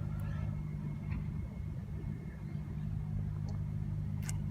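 A steady low mechanical hum, like an engine or generator running, with a faint steady high whine above it. A few sharp crackles from the campfire break through, the loudest near the end.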